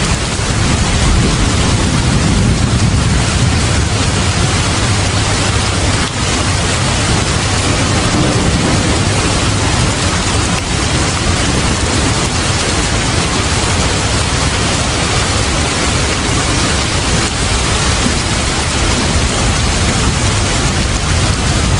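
Steady heavy rain, an even hiss with a low rumble beneath it.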